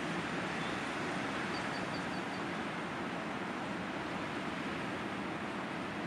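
Storm wind blowing steadily through blossoming cherry-plum trees, a constant rushing noise with no gusts standing out. A short run of five faint, quick high chirps sounds about a second and a half in.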